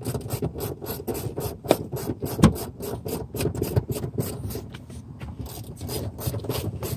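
Rapid rubbing, scraping and clicking of plastic interior trim being handled at the door sill, about six scrapes a second, with one louder knock about two and a half seconds in.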